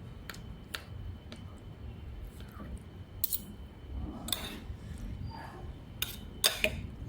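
About half a dozen sharp clicks and clinks of utensils being handled, the loudest pair near the end, over a steady low rumble.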